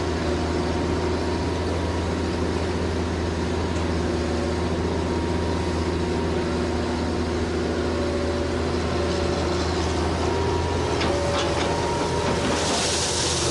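Hitachi excavator's diesel engine running steadily at a constant speed. A few sharp knocks come about eleven seconds in, followed by a short burst of hiss near the end.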